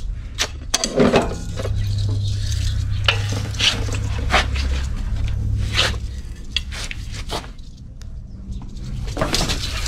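Metal snake tongs knocking and scraping against the frame and tank of a portable air compressor: a string of irregular clinks and scrapes.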